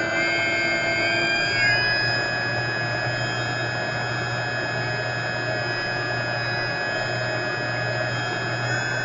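Electric motor and propeller of an FMS Cessna 182 RC model plane whining steadily in flight, heard from on board. Several of its tones slide in pitch about a second and a half in, then hold steady.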